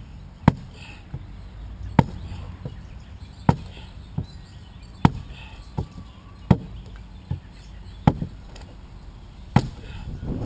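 Adze blows chopping into the green wood of a dugout canoe log, hewing its top edge down flat. Seven sharp strikes come about a second and a half apart, each followed by a lighter knock.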